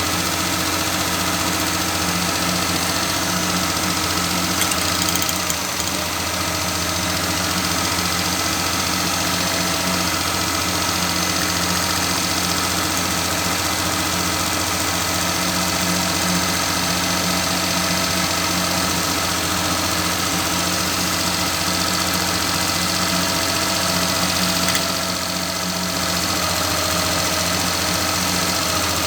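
Car engine idling steadily, with an even, unchanging beat.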